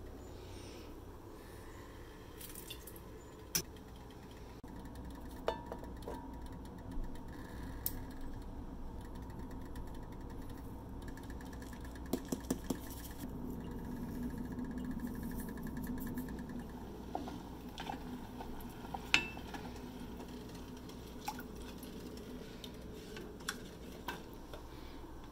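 Kitchen cooking sounds: scattered clinks and knocks of bottles and utensils against a pot and a spatula stirring a sauce, over a steady low hum.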